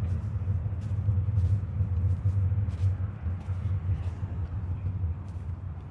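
Steady low rumble with faint footsteps about every two-thirds of a second, as of someone walking.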